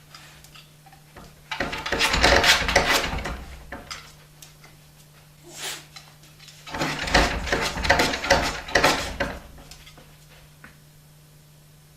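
A dog's claws scratching rapidly at a door in two bouts of a couple of seconds each, the dog wanting to be let out.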